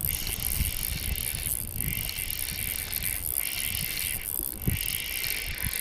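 Spinning reel being cranked to bring in a hooked fish, its gears whirring in runs of about a second or so with short pauses between turns, over a low rumble.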